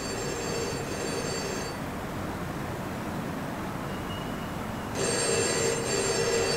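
Black desk telephone's bell ringing twice, each ring about a second and a half long, with a pause of about three seconds between them.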